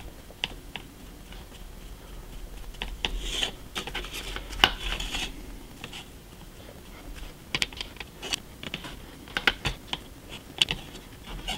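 Sponge dabbing paint onto a laser-cut brick wall panel on a cutting mat: irregular light taps and clicks, with a few brief scuffs of the sponge rubbing the surface.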